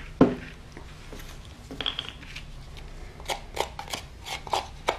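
A thump as something is set down on the tabletop, then from about three seconds in a utensil scraping and clicking against a glass jar, several strokes a second, as patching-compound powder and water are stirred together.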